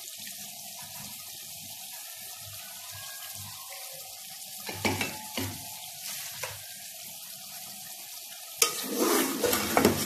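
Kabab curry sizzling steadily in a metal pot over a high gas flame: the water has cooked off and the dish is now frying in its own separated oil. A few light clicks come about halfway, and near the end a spoon starts stirring and scraping against the pot.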